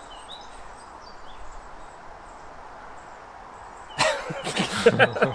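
Steady outdoor background noise with a few faint bird chirps. About four seconds in, a sudden loud burst of sharp clicks and sweeping, yelping pitched sounds begins.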